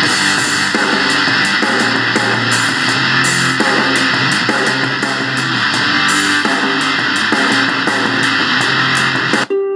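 Rock music with electric guitar and drums played back from the XHDATA D-901 radio's MP3 player through its speaker. It cuts off near the end as the next track begins with plucked notes.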